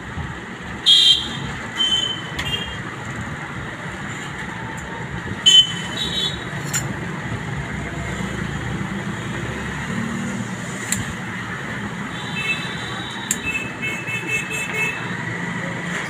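Steady background traffic noise with several short vehicle horn toots, the most of them near the end, and a couple of brief clicks.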